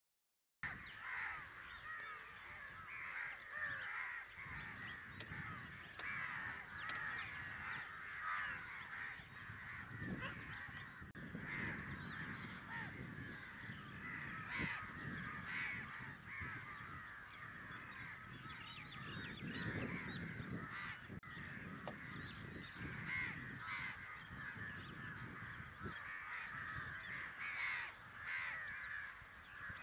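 A large flock of crows cawing and calling all at once in a dense, continuous chorus that starts abruptly about half a second in.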